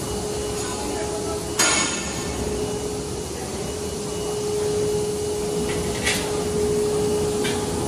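Steady machine hum of a running PVC profile extrusion line, with one constant tone through it. A sharp clack comes just under two seconds in, and lighter clicks follow near the end.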